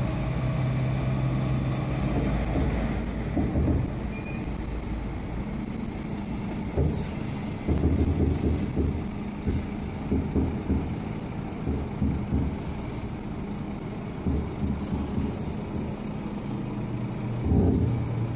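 Hooklift truck's diesel engine running as its hydraulic arm lowers a heavy compactor container to the ground and the truck pulls away from it. A steady engine note at first, then irregular heavier rumbles and clunks from about three seconds in.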